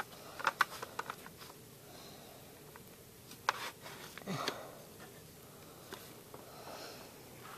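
Faint handling of a plastic toy: a run of light clicks about a second in and another click after three seconds as foam darts are loaded into a plastic toy dart cannon, with a sniff about four and a half seconds in.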